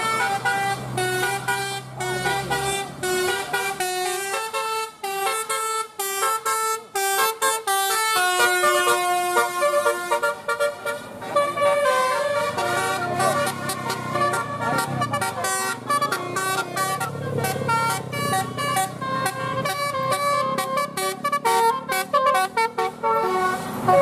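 Tour bus telolet horns playing melodies: runs of short, stepped notes, changing pitch several times a second, with a short break about ten seconds in. A passing vehicle's engine rumbles underneath in the second half.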